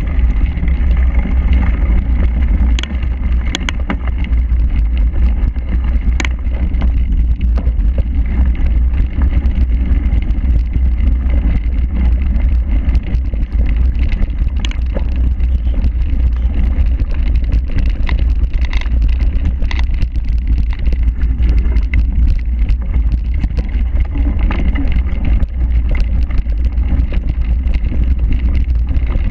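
Wind buffeting the microphone of an action camera on a cyclocross bike riding over grass, a steady heavy rumble with scattered sharp clicks and rattles from the bike over rough ground.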